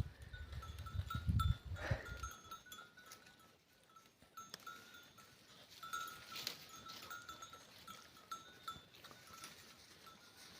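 Small bells on grazing goats, clinking faintly and unevenly as the animals move, with a low rumble in the first two seconds.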